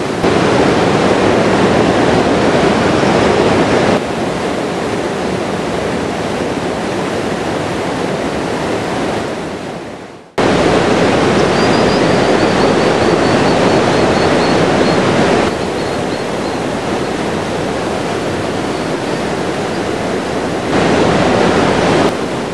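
Loud, steady rush of a fast-flowing river, briefly fading out and cutting back in about ten seconds in. A faint series of high chirps, falling slightly in pitch, sounds over the water soon after.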